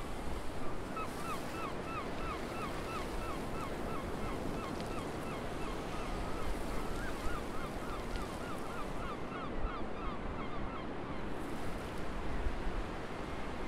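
Small waves lapping on a rocky shore with wind on the microphone, while a bird calls in a long, even series of short notes, about four a second, that stops about eleven seconds in.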